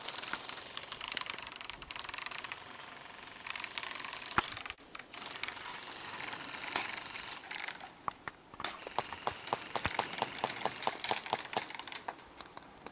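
Airsoft gun firing suppression fire: scattered sharp shots, then a quick, even string of about five shots a second near the end.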